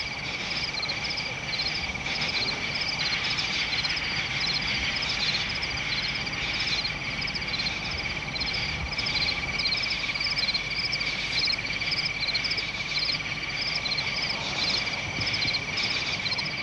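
Night-time chorus of frogs and insects: a steady high insect trill under short, repeated frog calls coming about once or twice a second.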